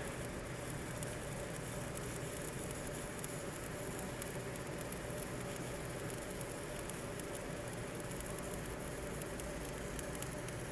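Shielded metal arc (stick) welding on pipe: the arc burns with a steady crackling hiss, with a faint steady hum underneath.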